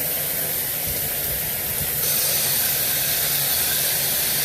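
Steady rushing hiss of hot water running from the plumbing fed by a tankless water heater, stepping up slightly in level and brightness about two seconds in.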